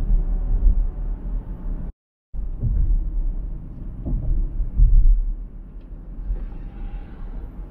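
Low, steady road and wind rumble of a car driving on a highway. The sound cuts out completely for about half a second about two seconds in.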